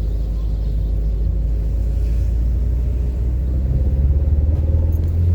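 A car driving: a steady low rumble of engine and road noise, a little louder about four seconds in.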